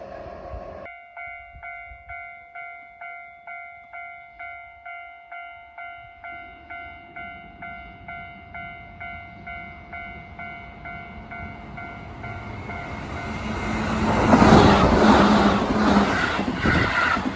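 Japanese level crossing warning bell ringing steadily, about two strikes a second. Near the end a Keihan electric train comes in, louder and louder, and runs past with a clatter of wheels, over the still-ringing bell.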